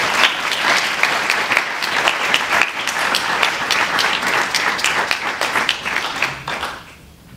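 Audience applauding, many hands clapping together, dying away just before the end.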